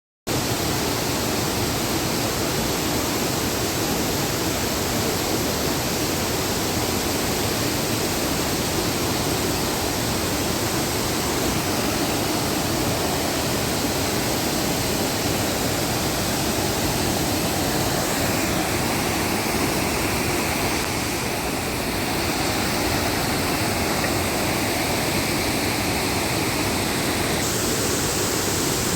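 Waterfall pouring: a steady, dense rush of falling water that cuts in suddenly at the start and holds without a break.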